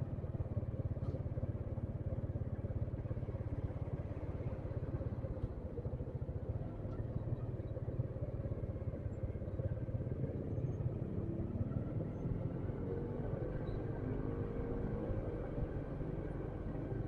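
Motorcycle running on the road with a steady low rumble; in the last few seconds a higher engine note comes in over it.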